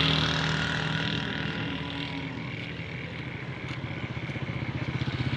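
A motor vehicle's engine running steadily with a fast, even putter, easing off slightly in the middle and picking up again near the end.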